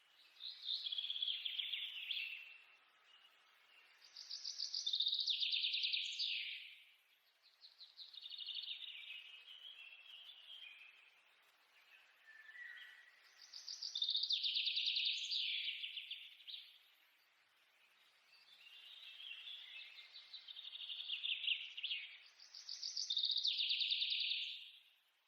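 Bird chirping in phrases of rapid, trilled chatter a few seconds long, with short lulls between them.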